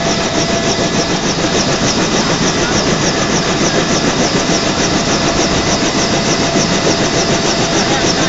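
Military helicopter's turbine engine and rotor running steadily, heard at the open cabin door: a constant whine with a fast, even rotor beat.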